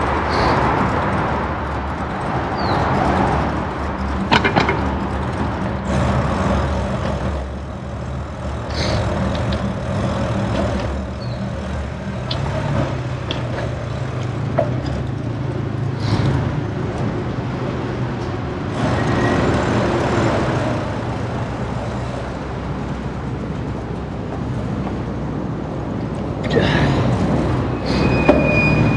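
City street traffic: cars and buses running past with a steady low engine hum, broken by a few sharp clicks or knocks.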